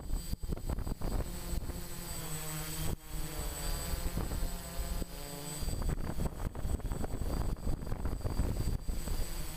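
Electric motors and propellers of a radio-controlled aircraft running in flight, with a steady low rumble. Their pitched whine shifts up and down for a few seconds in the middle.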